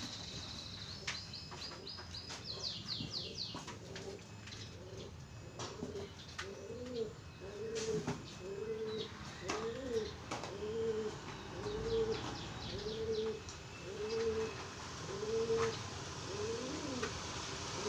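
A dove cooing, a steady run of evenly spaced coos about one and a half a second, starting about six seconds in. Small bird chirps come in the first few seconds, and there are scattered light clicks and knocks throughout.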